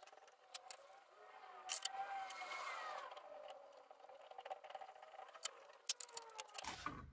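Scattered light clicks and clinks of small metal hand tools: a thread-cutting tap and tap wrench being worked and handled at a metal drill press vise.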